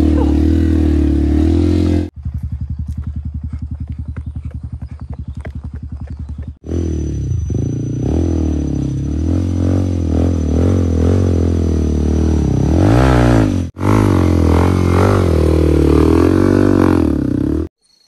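Trail motorcycle engine running under way, its revs rising and falling. For a few seconds after about two seconds in it drops to a slow, even chugging at low revs. The sound cuts off abruptly several times.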